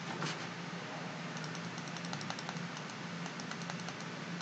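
Faint, scattered clicks of a computer keyboard and mouse over a steady low hum.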